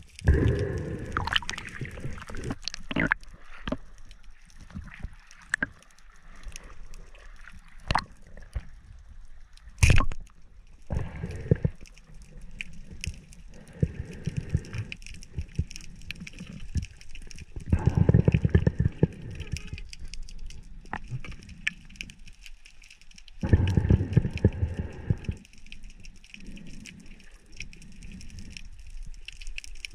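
Water gurgling and sloshing around an underwater camera, with scattered sharp clicks and knocks and three longer surges of rushing water.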